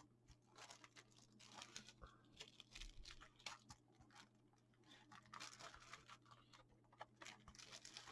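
Faint irregular crinkling and tearing of plastic shrink-wrap being pulled off a factory-sealed collector's binder, over a steady low hum.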